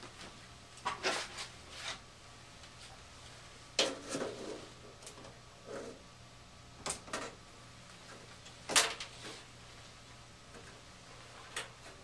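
Hands working inside an open furnace cabinet: scattered knocks and rattles of parts and panel being handled, about seven in all, the loudest about three-quarters of the way through, over a faint steady low hum.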